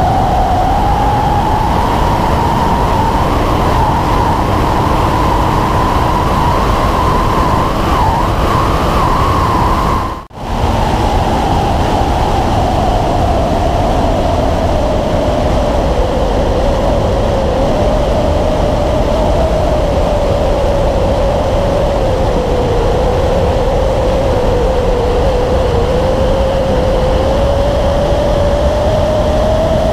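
Motorcycle engine running at highway cruising speed under heavy wind rush. The engine's whine climbs slowly over the first ten seconds, the sound drops out briefly, then the whine sags gradually and rises again near the end.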